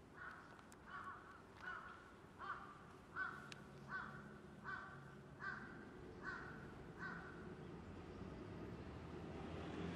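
A crow cawing about ten times in an even series, roughly one caw every three-quarters of a second, stopping about seven seconds in.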